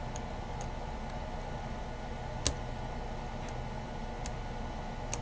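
Faint, irregular clicks of a lock pick working the pins of a Kryptonite 851219 padlock under tension, with one louder click about two and a half seconds in, over a steady low hum.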